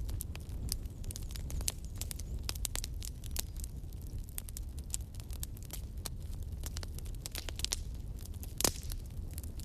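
Fireplace fire crackling: irregular sharp pops and snaps over a steady low rumble, with one louder pop near the end.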